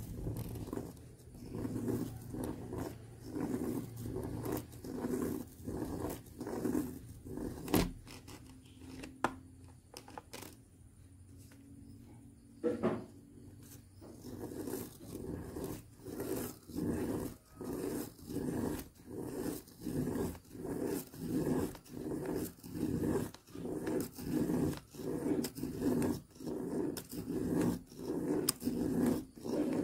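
Pen scratching on paper as a plastic Spirograph gear wheel is rolled around inside its toothed ring, the teeth clicking along. The scratching swells and fades in a steady rhythm a little more than once a second, eases off for a few seconds in the middle, and has one sharp click about a quarter of the way in.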